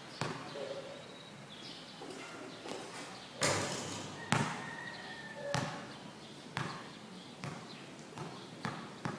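Basketball being dribbled on a court: single bounces about a second apart, coming faster near the end.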